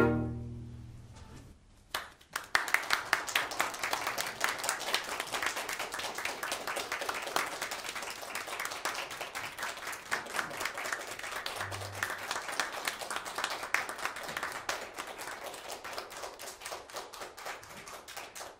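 The last chord of clarinet and string quartet dies away in the room. After a moment of quiet a small audience breaks into applause, which thins out toward the end.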